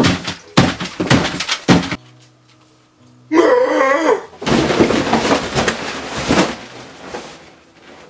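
A quick run of messy thumps and splatters as a person drives his face into a plate of salad. After a short pause comes a brief wavering shout, then a long crash and clatter as a table laid with plates and cups is knocked over.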